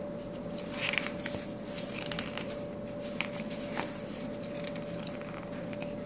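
Pages of a hardcover picture book being handled and turned: a string of papery rustles and light clicks, most of them in the first four seconds, over a steady faint hum.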